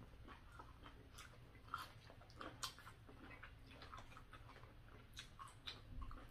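Faint close-up eating sounds: chewing of roasted okra and kabob meat, with scattered soft clicks and lip smacks at irregular intervals.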